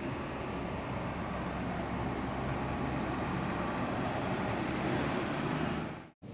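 Steady rumble of a bus's diesel engine running, with a low droning hum under a wash of engine noise. The sound drops out abruptly for a moment near the end.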